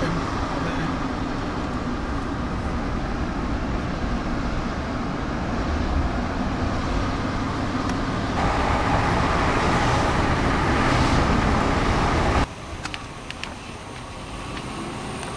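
Steady road and engine noise inside a moving car's cabin, a dense low rumble that grows a little brighter about two thirds of the way in. It cuts off suddenly near the end, leaving a quieter background with a few faint clicks.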